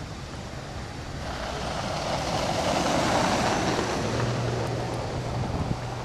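A car driving past on a snow- and slush-covered road, the hiss of its tyres swelling to a peak about three seconds in and then easing off. A steady low engine hum follows.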